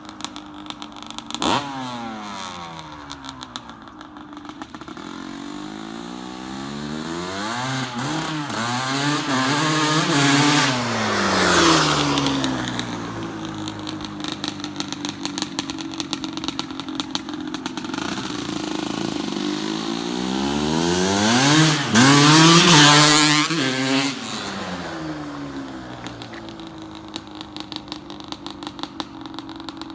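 2001 Honda CR250's two-stroke single-cylinder engine being ridden hard, its note repeatedly climbing and dropping as the throttle is worked. It is loudest twice, about a third of the way in and again near two-thirds.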